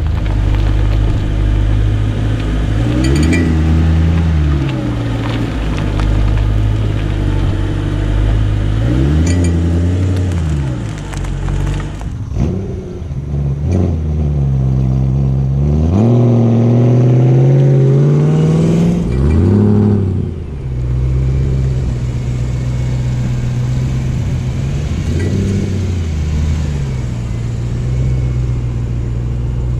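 BMW M3 engine and drivetrain while driving, revs climbing and dropping several times as it pulls away and changes gear, with a longer climb about two-thirds through. Brief clicks come as the revs climb, part of the propshaft rattle being demonstrated.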